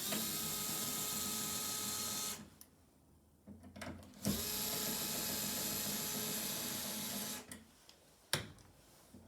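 Small cordless drill/driver motor running twice in steady spells, about two seconds and then three seconds, while working on the outlet's fasteners; a few light knocks follow near the end.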